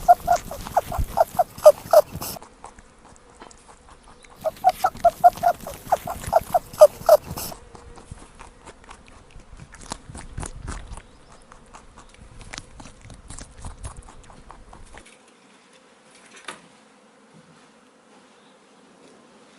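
An animal calling in two bouts of rapid, evenly repeated short pitched calls, each bout lasting two to three seconds, followed by scattered clicks and rustling.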